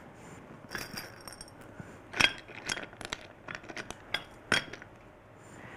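Small hard craft pieces, beads, pearls and shells, clicking and clinking as they are picked up and handled: a scatter of light ticks, the sharpest about two seconds in.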